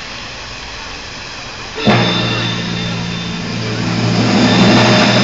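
Steady crowd noise, then about two seconds in a brass band strikes up suddenly with loud sustained chords that swell and keep playing.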